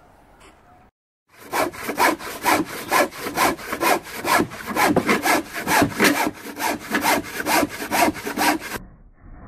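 Irwin jack saw (hand saw) cutting through an 8x3 timber decking board along a curved line. Fast, regular rasping strokes, about three a second, start after a second or so and stop abruptly near the end.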